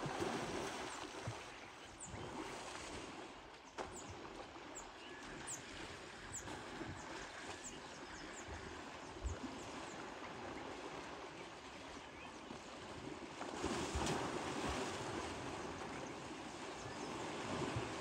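Water sloshing and splashing around a young elephant as it swims and ducks under in a dam, growing louder for a few seconds about three-quarters through.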